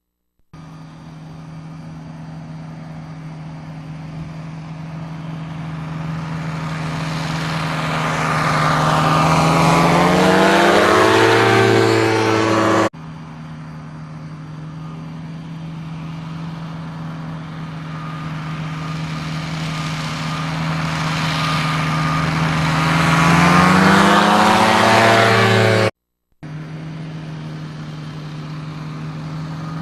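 Buccaneer XA amphibious ultralight's two-stroke engine and propeller droning in two flybys, each growing louder as the aircraft approaches and dropping in pitch as it passes. Each pass is cut off suddenly, and a third approach starts near the end.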